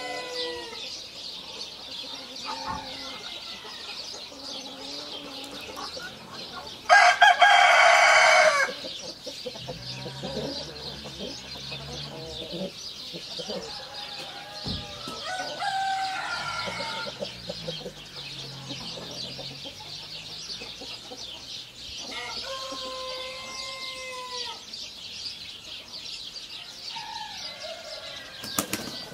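Brahma chickens calling: a rooster crows once, loudly, about seven seconds in, and hens cluck and call in short falling notes now and then throughout. A steady high-pitched chirping haze runs underneath.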